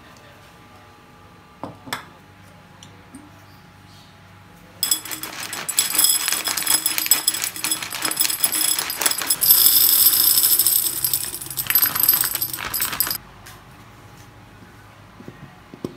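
Dry macaroni poured into a glass jar, a dense rattling and clinking of pieces against the glass that starts about five seconds in and stops suddenly about eight seconds later.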